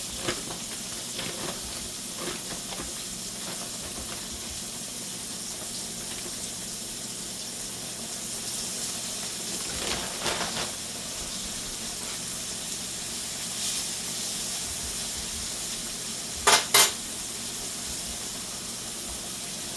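Food frying in hot oil in a pan, a steady sizzle with small clinks of a utensil against the pan. Two sharp metal clanks come close together about three-quarters of the way through.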